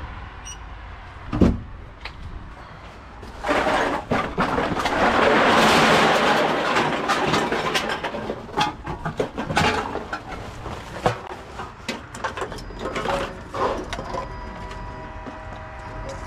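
Plastic bag full of collected drink containers rustling and clattering, loudest a few seconds in, with sharp knocks and clicks throughout. Near the end a reverse vending machine gives a steady tone as a plastic bottle is fed into its intake.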